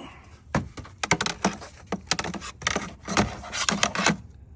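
Irregular clicks, rattles and rustles from hands handling loose objects, in quick clusters, stopping near the end.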